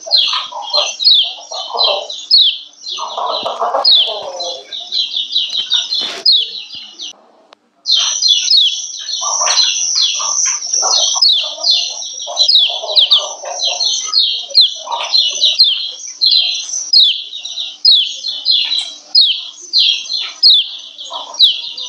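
Female yellow white-eye (kecial kuning) giving its 'ciak ciak' call: a fast, steady run of short, high, downward-sweeping chirps, about three a second, with softer, lower chatter underneath. It breaks off for about half a second about seven seconds in. Keepers play this female call to bring male kecial into breeding condition and set them singing.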